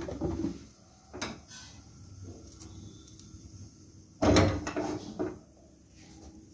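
Non-stick kadai handled on a gas stove's pan support: a couple of light knocks, then about four seconds in a louder clatter and scrape of metal lasting about a second as the pan is lifted and tilted to swirl the heating oil.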